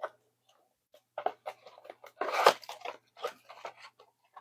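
Trading-card packaging being torn open by hand: a run of irregular crinkling and tearing noises.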